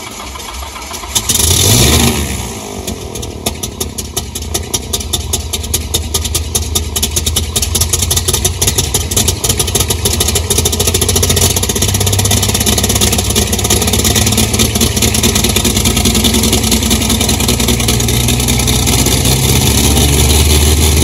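Slick 540 aerobatic plane's six-cylinder Lycoming 540 piston engine starting. The starter cranks briefly, the engine catches with a loud burst of power about two seconds in, then settles into a steady idle with even firing pulses, the propeller turning.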